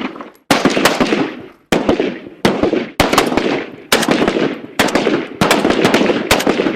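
AK-47 rifle firing about eight short bursts of a few rounds each, every burst followed by a long echoing tail.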